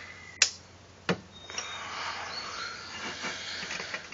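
Two sharp metallic clicks about two-thirds of a second apart from a half-inch-drive torque wrench and 24 mm socket being worked on a Porsche 944 crank bolt. A faint background hiss continues between them.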